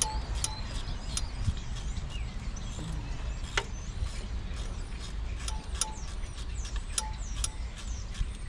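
Scattered light metallic clinks and ticks of a socket wrench and extension knocking against engine hardware, some with a brief ring. Birds chirp faintly behind them.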